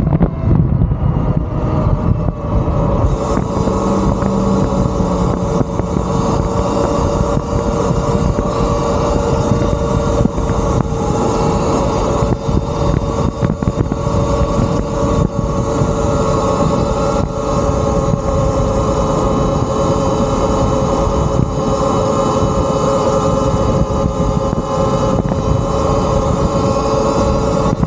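Talaria Sting MX4 electric dirt bike cruising at road speed: heavy wind rumble on the microphone over a steady whine from the electric motor and drivetrain.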